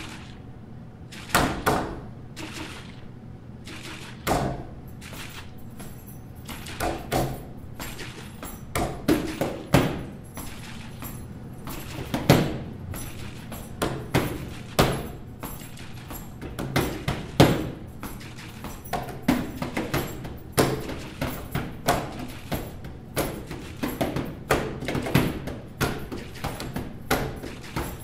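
Thumps and knocks at uneven intervals, a few at first and coming closer together after about eight seconds, over a steady low hum.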